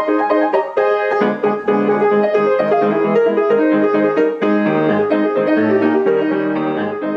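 Intro music: piano playing a lively tune, a lower part joining about a second in, fading out at the end.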